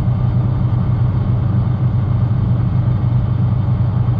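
Diesel truck engine running with a steady low drone.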